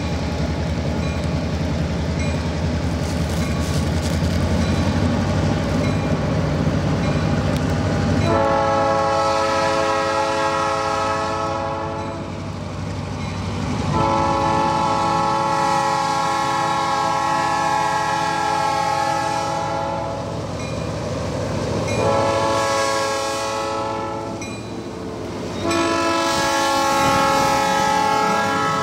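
A diesel locomotive's engine running, then its air horn sounding a multi-note chord in four blasts: long, long, short, long. This is the standard signal for approaching a road grade crossing.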